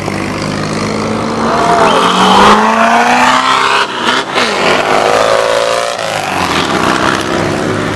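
Off-road buggies accelerating past on a dirt road, their engines revving with pitch rising as they pull away, over a loud rushing noise.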